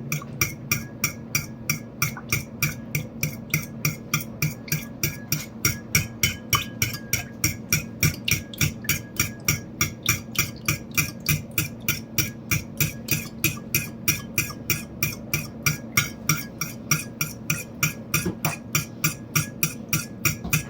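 A utensil beating eggs, oil and water by hand in a mixing bowl, clicking against the bowl in a quick, even rhythm of about three or four strokes a second.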